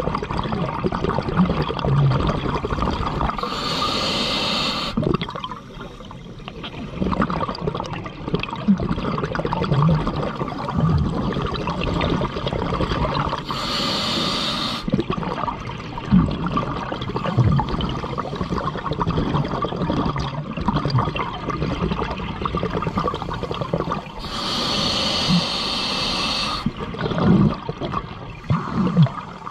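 Scuba diver breathing underwater through an open-circuit regulator: three hissing bursts of exhaled bubbles, about ten seconds apart, over a steady underwater rumble.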